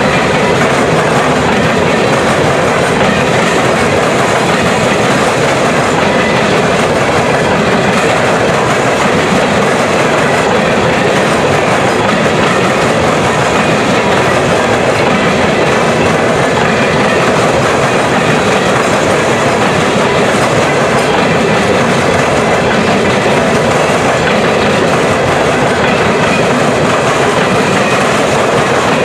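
Empty steel coal cars of a freight train rolling past, their steel wheels clattering on the rails in a steady, loud noise.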